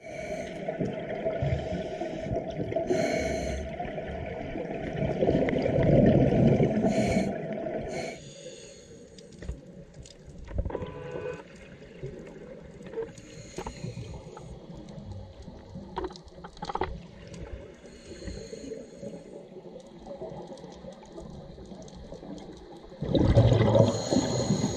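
Underwater sound of a scuba diver's exhaled bubbles rushing from the regulator: a long burst for the first eight seconds and another short one near the end, with quieter underwater hiss and faint clicks between.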